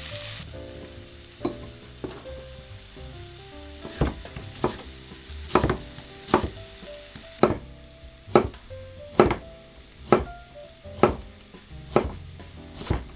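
Chef's knife slicing onion and then zucchini on a wooden cutting board, each stroke a sharp knock on the board, coming about once a second. A frying sizzle cuts off half a second in, and soft background music runs underneath.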